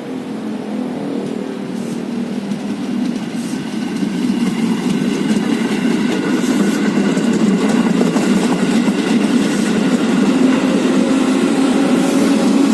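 A train running slowly, its steady rumble growing louder as it approaches, with a faint steady whine above it from a few seconds in.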